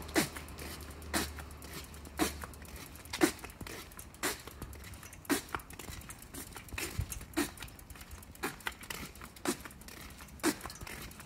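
Footsteps of a person walking at an even pace on an asphalt street, a clear step about once a second with fainter ones between.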